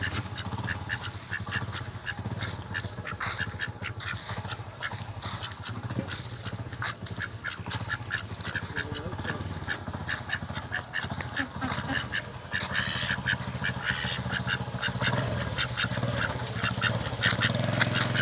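Domestic ducks quacking in a rapid run of short calls, busier in the second half, over a steady low hum.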